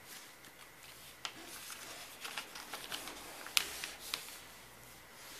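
A sheet of paper rustling and crinkling as it is folded and pressed flat by hand, with several sharp crackles, the loudest about three and a half seconds in.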